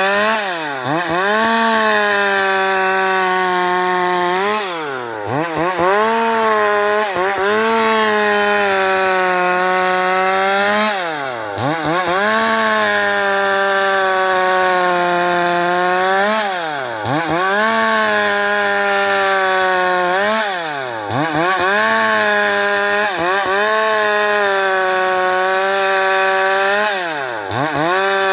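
Stihl MS 382 two-stroke chainsaw running at high revs while ripping a pequi-wood post lengthwise. Its pitch drops sharply and recovers about ten times as the revs fall and pick up again.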